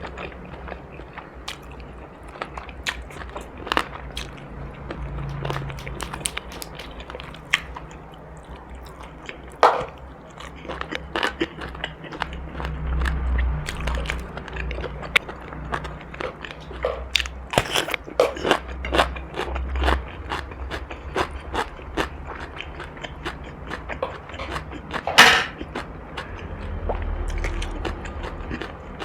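A person biting and chewing crunchy food, with many irregular crisp crunches and one loud crunch about three-quarters of the way through.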